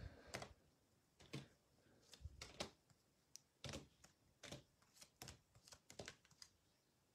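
Faint, irregular taps and clicks of trading cards being picked up and laid down on a tabletop as they are sorted into piles.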